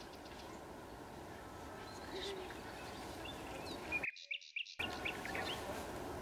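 Forest ambience: scattered short bird chirps over a steady background hiss, with the low background dropping out briefly about four seconds in.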